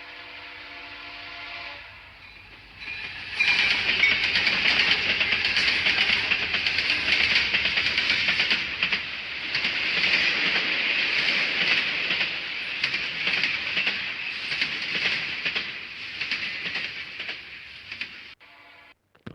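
A 3D ringtone played aloud from a phone's speaker: a held multi-note chord for the first couple of seconds, then a loud rushing, rattling noise that runs until near the end, where a short chord sounds briefly.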